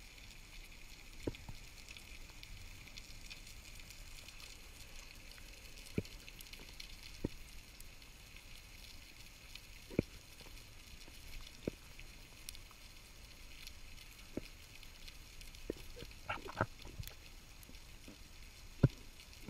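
Underwater ambience: a steady high crackling hiss, broken by about ten scattered sharp clicks, the loudest near the end.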